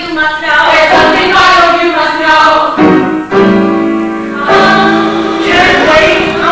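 Stage-musical cast singing together in a song number, women's voices prominent, with a note held for about a second midway.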